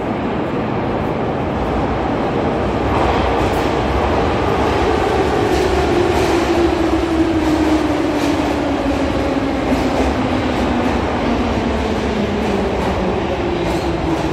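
Em-501 metro train pulling into the station and braking, its whine falling slowly and steadily in pitch over a continuous rumble.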